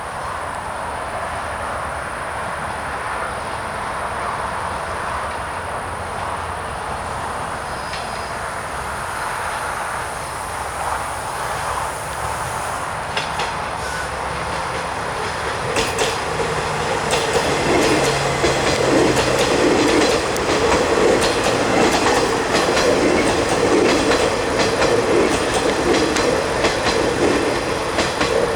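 Metro train running on the track, its wheels clicking over rail joints. It grows louder from about halfway through.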